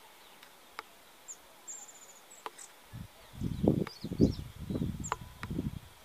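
High, thin calls of a small songbird: single short notes and, about one and a half seconds in, a quick falling series of chips, with a few sharp clicks. From the middle to near the end, a run of low muffled bumps on the microphone is louder than the calls.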